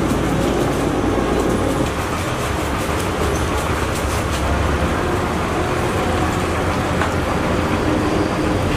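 A huge cauldron of donkey meat broth at a rolling boil: a steady low rumbling bubbling, with a few faint knocks and splashes from the bamboo whisk and iron hook working in the pot.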